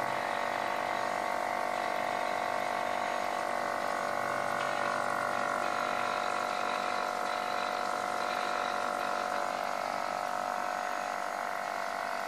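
Small electric pump running steadily, pumping beer through an inline carbonation stone into a keg: an even whine made of several steady tones over a light hiss of liquid flow.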